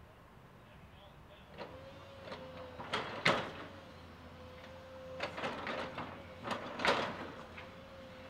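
Komatsu PC200 excavator bucket digging into demolition rubble: two bouts of clattering and scraping as chunks are scooped, over a steady whine that comes in about a second and a half in.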